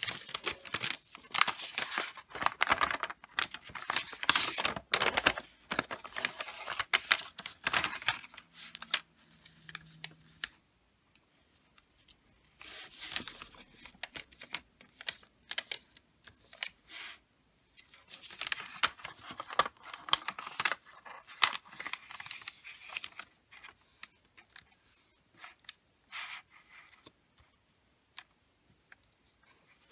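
A sheet of wrapping paper folded and creased by hand: crisp rustling and crackling as the paper is lifted, bent and pressed flat. It comes in three bursts with quiet pauses between folds, and a few soft clicks near the end.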